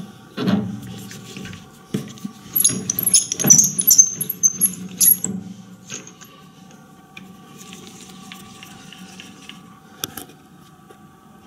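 Steel lathe tooling being handled on a small metal lathe: light metallic clinks and rattles, busiest from about two and a half to five and a half seconds in, with a single click near the end.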